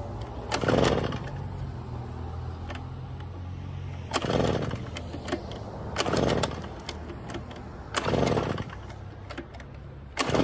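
Recoil starter of a two-stroke Poulan Pro backpack blower being pulled hard five times, about two seconds apart after a longer gap following the first pull, each pull a short rasping whir; the engine cranks but never catches because it is badly flooded.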